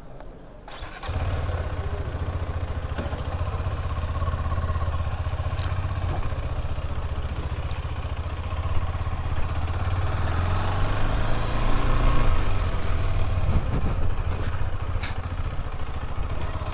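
KTM 390 Adventure X single-cylinder engine running as the motorcycle is ridden off at low speed, starting abruptly about a second in and growing a little louder partway through.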